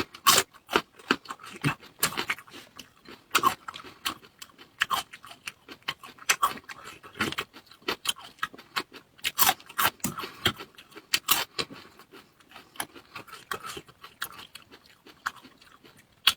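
Close-miked eating: mouth chewing and smacking food, with many irregular sharp clicks, crunches and wet smacks.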